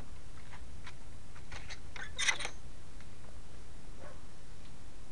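Handling noise on a small keychain video camera's built-in microphone: scattered light clicks and rustles, with a louder rustling scrape about two and a half seconds in, over the microphone's steady hiss.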